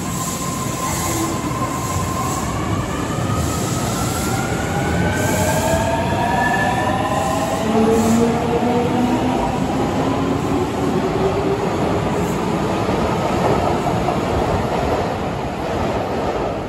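Osaka Metro 30000A series subway train pulling out of an underground station, its traction motors whining in several tones that climb steadily in pitch as it accelerates, over the rumble of wheels on rail.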